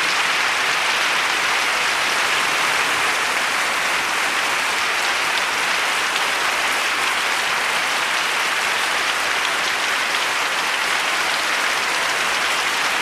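Sustained applause, a steady wash of clapping at an even level.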